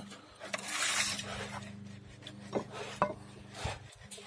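Tool handling on a wooden workbench: a rasping rub lasting about a second, then a few light knocks, as a plastic plastering float is picked up and brought to a round abrasive disc for sanding. A faint steady low hum runs underneath.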